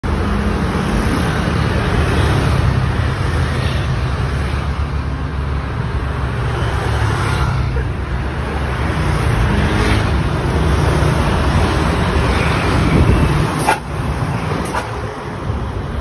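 Busy road traffic passing close by: a steady rumble of motorcycle and car engines and tyres on asphalt. A single sharp knock comes about fourteen seconds in.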